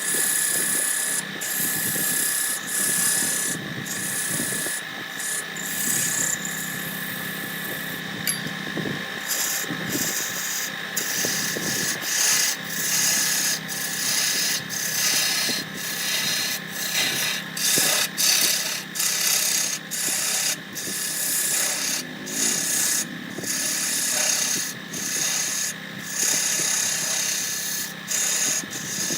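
A wood lathe running with a steady hum while a turning tool scrapes and cuts the spinning wood in many short, repeated passes.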